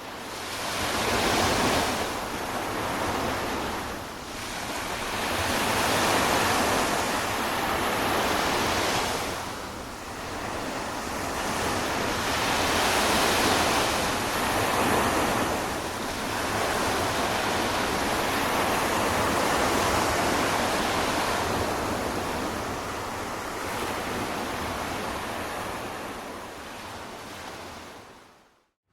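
Ocean surf breaking on a beach, the wash swelling and easing every few seconds, with wind rumbling on the microphone.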